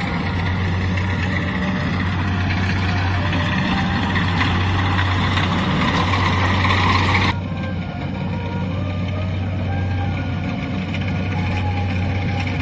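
Kubota DC-70 rice combine harvester running: a steady engine drone with a broad rushing noise from the machine working. The rushing cuts off abruptly about seven seconds in, leaving the drone.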